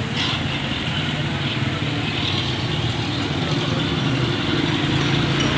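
A motor vehicle engine running steadily, slowly getting louder.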